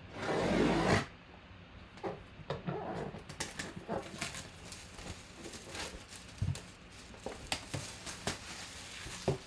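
Clear plastic shrink wrap being torn and peeled off a cardboard box: a loud rip lasting under a second at the start, then irregular crinkling and crackling of the plastic.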